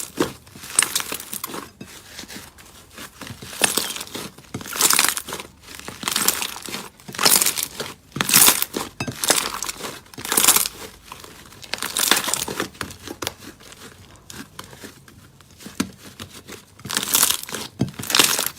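Slime being squeezed, pressed and stretched by hand, crackling and popping in repeated crinkly bursts about once a second. It cuts off abruptly at the end.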